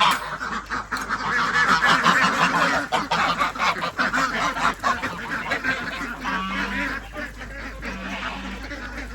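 A flock of ducks quacking loudly and rapidly over one another, busiest in the first half and tapering off toward the end.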